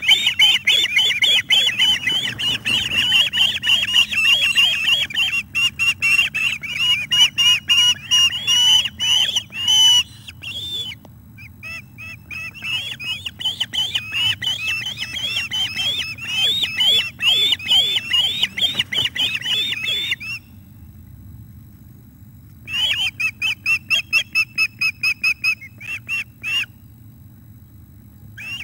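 Ospreys on the nest calling: rapid series of high chirping calls, about five a second, in long bouts that break off about ten seconds in, start again, stop near twenty seconds, with a shorter burst near the end. Excited calling around a fish delivery to the nest.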